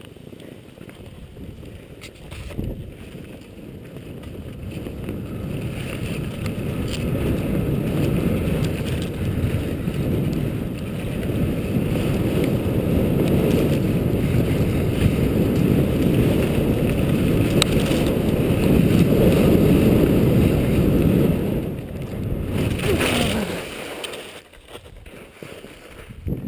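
Wind rushing over a helmet-mounted camera's microphone, with skis running over slushy snow, growing steadily louder as the skier picks up speed. It drops off after about twenty seconds, with a short scraping skid as the skis slow to a stop in soft snow.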